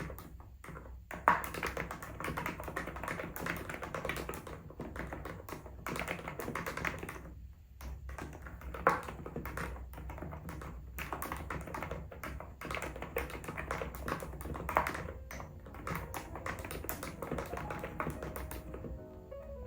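Continuous typing on an ABKO electrostatic capacitive keyboard: a quick, dense run of key clacks, with a short pause about seven and a half seconds in and another near the end.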